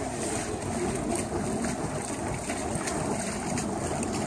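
Steady rushing noise of wind buffeting the microphone, with surf washing on the shore.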